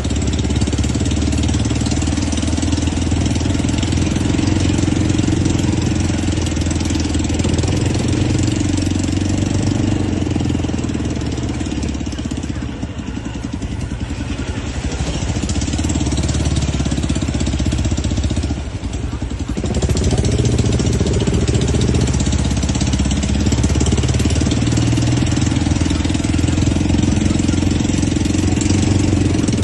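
Off-road RTV's engine running steadily as it drives, with a brief dip in level about two-thirds of the way through.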